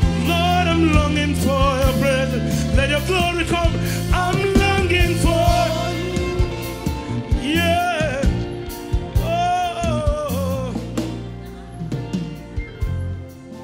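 Gospel worship band music: keyboards and a steady bass line under a singer's wavering, held vocal lines with no clear words. The singing stops about 11 seconds in, and the band carries on more quietly with a few light drum hits.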